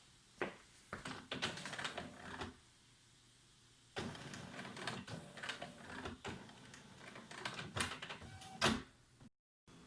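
HP Deskjet F4280 inkjet printer: clicks and knocks as the cartridge access cover is closed. About four seconds in, the printer mechanism starts running with a steady whir and a run of clicks, after the cartridge has just been reseated. The sound cuts off abruptly near the end.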